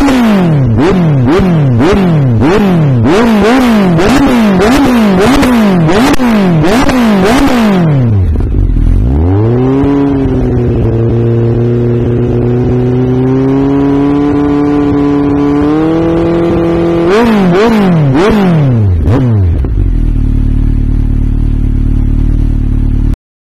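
Honda CB1300's inline-four engine revved in quick repeated throttle blips, about one and a half a second, then held at a steady raised speed that creeps slowly higher. Another short run of blips follows, then it settles to a low steady run before the sound cuts off abruptly near the end.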